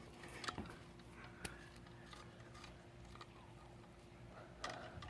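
Faint scattered clicks of small metal parts: scooter bar clamp bolts being handled and started into their threads by hand.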